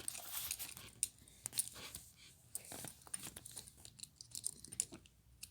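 Faint, irregular clicks and rattles of metal handcuffs and shackle chain being fumbled by hand, with rustling of clothing.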